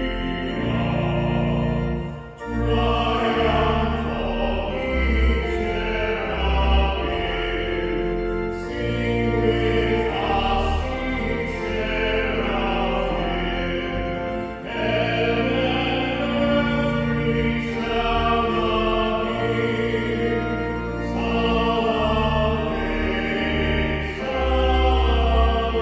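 Male cantor singing a hymn solo, his held notes wavering, over a sustained instrumental accompaniment.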